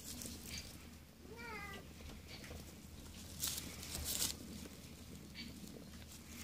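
Dry straw rustling and crackling in a rabbit nest as the nursing doe and her kits shift. The loudest rustles come twice, a little over halfway through. About a second and a half in there is one short, wavering, meow-like call.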